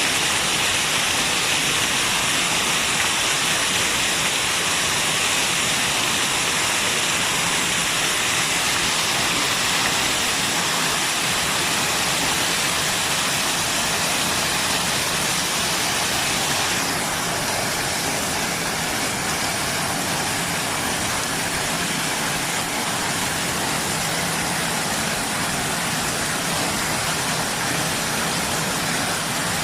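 Waterfall rushing steadily, an even wash of water noise that turns a little softer about two-thirds of the way through.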